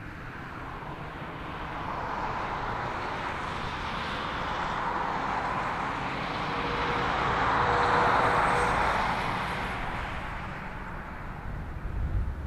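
Jet engines of a Boeing 787-8, Rolls-Royce Trent 1000s, at take-off thrust as the airliner starts its runway roll. Heard from a distance, the rushing roar swells to its loudest about eight seconds in and then eases off.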